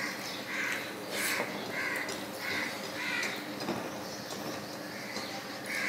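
A crow cawing, a run of six short caws about two a second, then a pause of a couple of seconds before it calls again near the end.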